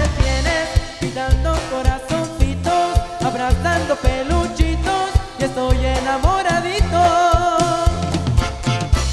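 Live band music: an instrumental passage between sung verses, with a steady bass and drum beat under a melodic lead line with some sliding notes.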